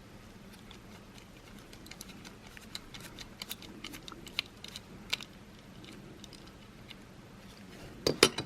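Light ticks and clicks of a small screwdriver and plastic key-fob parts being handled while a tiny screw is taken out, scattered over a few seconds. A louder cluster of sharp clacks comes near the end.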